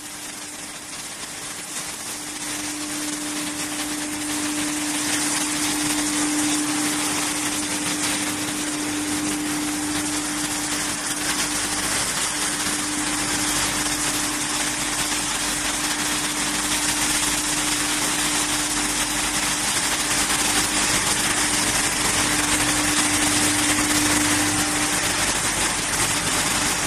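Wood hammer mill line running: continuous steady machinery noise from the mill, its cyclone and the motor-driven rotary discharge valve, with a steady hum running through it. It grows louder over the first few seconds, then holds steady.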